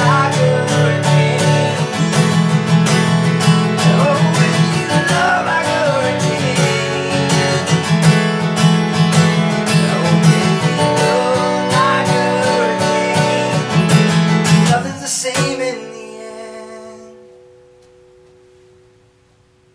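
Acoustic guitar strummed in a steady rhythm, ending about fifteen seconds in on a final chord that rings out and fades away.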